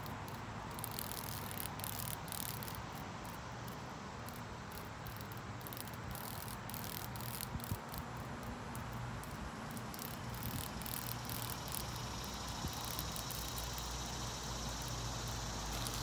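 Cicada buzzing in the grip of a cicada killer wasp, an uneven rattling buzz, with a steadier high-pitched chirring joining about three-quarters of the way through.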